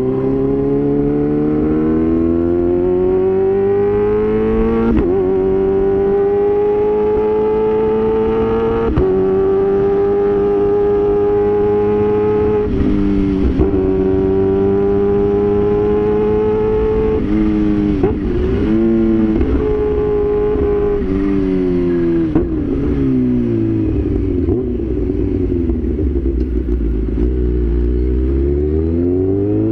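Kawasaki H2 Carbon's supercharged inline-four engine under way. Its pitch climbs with sudden drops about five and nine seconds in, holds steady, stutters around eighteen to twenty seconds, falls away as the bike slows, and rises again near the end.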